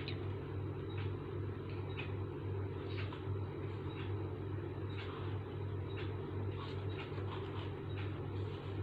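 Steady low hum, pulsing evenly about twice a second, with a faint hiss and faint scattered clicks.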